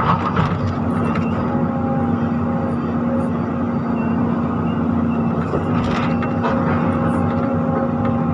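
Volvo EC210 excavator's diesel engine and hydraulics running steadily under load, heard from inside the cab, as the bucket digs into soil and curls up full. A constant hum sits under the engine drone.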